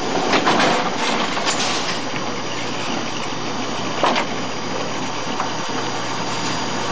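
Steady din of a bowling alley, with balls rolling down the lanes and machinery running. Pins clatter over the first couple of seconds, and there is a single sharp knock about four seconds in as a bowling ball is taken from the ball return.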